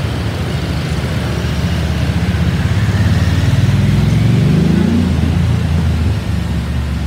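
Diesel train engine running close by with a low, pulsing note; its pitch rises from about two seconds in and drops away near five seconds as the engine works harder.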